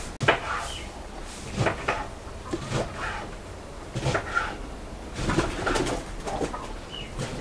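Fresh green beans being snapped by hand over a metal bowl: a string of short, irregular snaps and clicks. Birds call now and then in the background.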